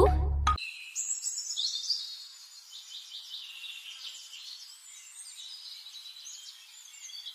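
Backing-track music with heavy drums stops about half a second in. A recorded forest ambience follows: many birds chirping and insects trilling, all high-pitched and thin.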